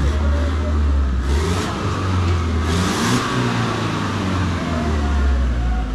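A motor vehicle's engine running close by, its low hum rising and falling in pitch, with two brief hissing surges in the middle.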